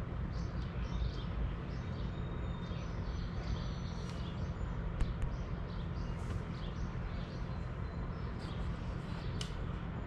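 Small birds chirping and twittering in short, high calls over a steady low hum.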